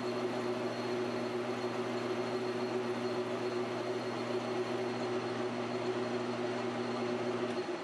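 PM1236T metal lathe running steadily, its motor and gear train giving a whirring hum while it turns a titanium ring on a mandrel for an outside chamfer cut. The lowest part of the hum drops away near the end.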